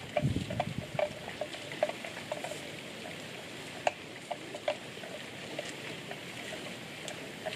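Water buffalo grazing: scattered crisp crackles and clicks of grass being torn and chewed, over a steady hiss, with a louder rustle in the first second.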